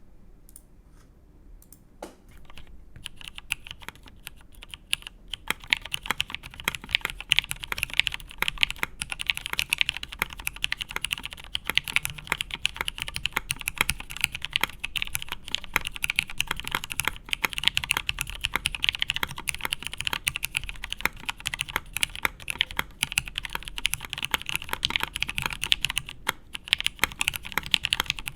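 Custom Matrix 8xv2.0 mechanical keyboard being typed on: lubed Hirose switches on an aluminium plate with 63.5 g springs and G81-3004 keycaps. The typing starts sparse and soon becomes fast and continuous, a dense stream of key clicks.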